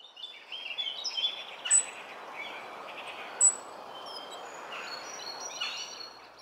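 Outdoor ambience of many songbirds chirping and twittering over a steady background hiss, fading in at the start. Two sharper, louder high notes stand out, about two seconds apart.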